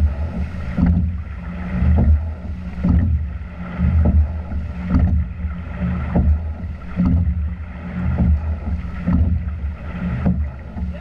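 Double scull being rowed: rhythmic knocks and splashes of the sculling oars in their gates and the blades in the water, about once a second, over a low steady rumble.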